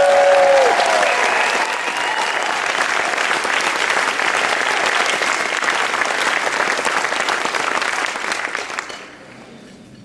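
Audience applauding and cheering, with a high held shout over it that ends within the first second; the applause dies away about nine seconds in.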